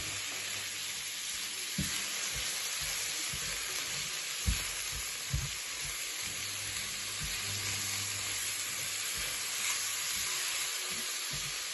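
Chicken and freshly added mixed vegetables sizzling in hot oil in a pan, with a steady hiss and a few soft knocks of stirring against the pan.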